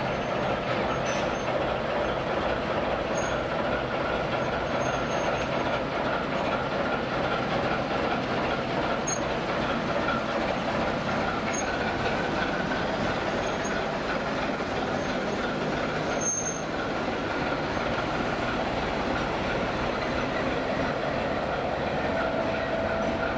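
ChME3T shunting diesel locomotive moving slowly past close by, its six-cylinder diesel engine running steadily over the sound of the train on the rails.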